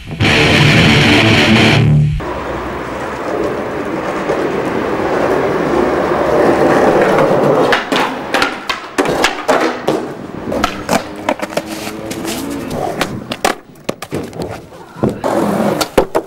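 Skateboard wheels rolling on concrete, then from about eight seconds in a quick run of sharp clacks and slaps from tail pops, grinds and landings on a ledge and curb, over music.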